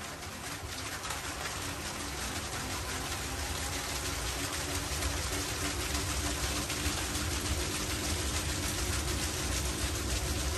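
Spin-art spinner whirling a large square canvas: a steady whir and rush of air with a low hum. It grows gradually louder as the spin speeds up.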